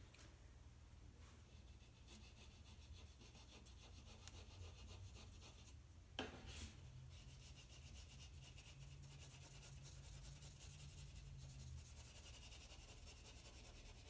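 Faint scratchy rubbing of a paper blending stump over black paper, smoothing out white charcoal tone, with a light tap about six seconds in.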